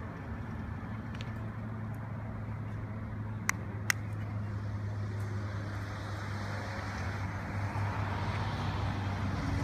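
Two sharp clicks about half a second apart, typical of a handheld gate remote transmitter's button being pressed, over a steady low hum that grows slightly louder near the end.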